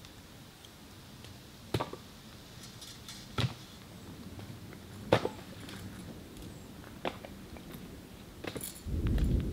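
Firewood being handled and set around a campfire: a handful of sharp, separate wooden knocks a second or two apart, then a louder low scuffle near the end.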